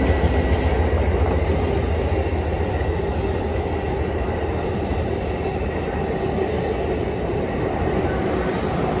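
Amtrak passenger cars rolling past on the track: a steady low rumble of wheels on rail that eases a little over the first few seconds.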